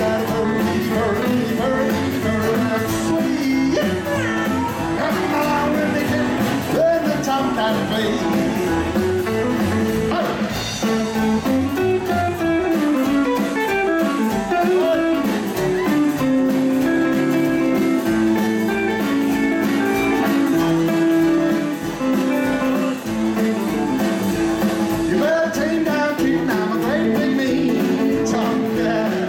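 A live rockabilly band playing: electric guitar, acoustic rhythm guitar, upright double bass and drums.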